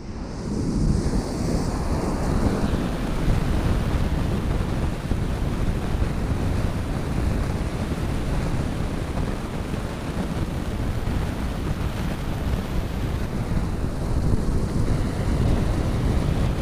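Ocean surf breaking and washing up a sandy beach, a steady rush of water, with wind rumbling on the microphone.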